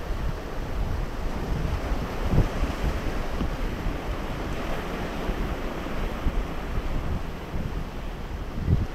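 Ocean surf washing in as a steady rushing noise, with wind buffeting the microphone in low gusts.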